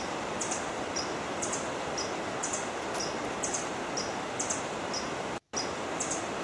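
Rushing river water as a steady, even hiss, with a high two-part chirp repeating regularly about once a second. The audio cuts out completely for a split second about five and a half seconds in.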